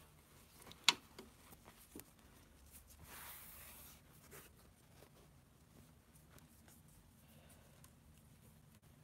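Faint handling noises of a piece of fabric being pulled and laid out by hand: a sharp tap about a second in, a few small ticks, and a soft rustling swish around three seconds in.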